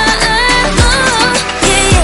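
Background pop music with a steady beat and a falling electronic bass drum, a sung melody line over it.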